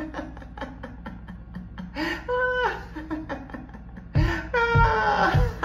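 A person laughing heartily in quick runs of chuckles, broken by high squealing laughs that slide down in pitch about two seconds in and again after four seconds, where the laughing gets louder.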